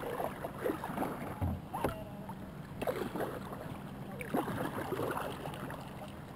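Kayak paddle strokes: the blades dipping and water dripping and splashing against the kayak's hull in short irregular splashes, over a steady low hum.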